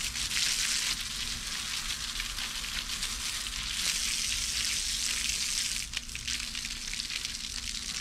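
Garden hose jet spraying onto a concrete kennel floor: a steady hiss of water hitting concrete, louder for a couple of seconds about halfway through.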